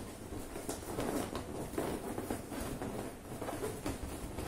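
Inflated latex balloons being handled and twisted together into a cluster, rubbing against each other with irregular soft taps.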